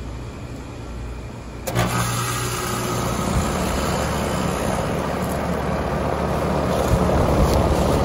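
2016 Rheem Classic 14 heat pump shifting its reversing valve about two seconds in, with a sudden loud whoosh of refrigerant. The hiss then carries on and grows slightly over the running compressor's hum. The unit goes straight into defrost without a smart-shift pause, because its defrost delay pin has been removed.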